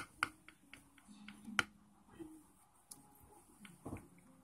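Light clicks and taps of a wooden popsicle stick working in a plastic tub while slime is handled, about half a dozen, the loudest about a second and a half in.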